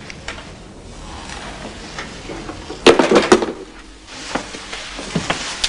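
Red telephone handset set down onto its cradle: a short clatter of sharp knocks about three seconds in, followed by a few lighter clicks.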